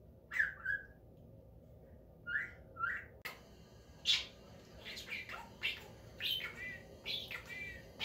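Budgerigar calling: a few separate short chirps in the first three seconds, then a denser run of quick warbling chatter from about five seconds in.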